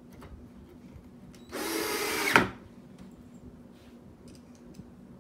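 Cordless drill driving a screw through a wooden bed slat into the side rail, running for about a second in the middle, its pitch dropping as it stops.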